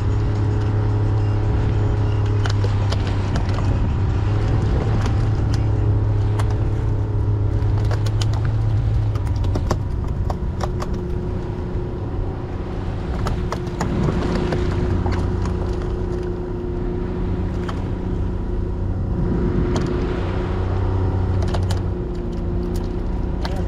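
A small fishing boat's motor running steadily while trolling. About ten seconds in its note changes and it gets a little quieter, with scattered clicks and knocks throughout.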